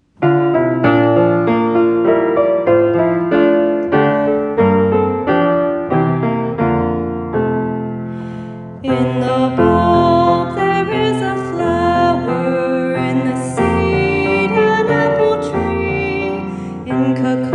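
Piano music begins after a moment of silence, with separate notes that ring and fade; about nine seconds in, a fuller accompaniment joins and the sound grows brighter.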